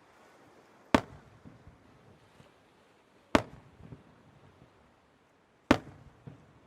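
Aerial firework shells bursting: three sharp bangs about two and a half seconds apart, each trailing off in a short rumbling echo.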